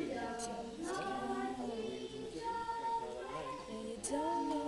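Young female voices singing a tune, with some notes held long.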